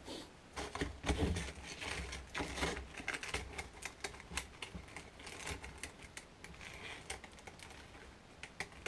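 Stiff abrasive sanding belts being handled on a workbench: irregular light clicks, taps and rustles.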